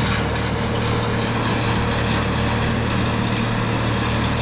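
Skid steer diesel engine running steadily at an even speed.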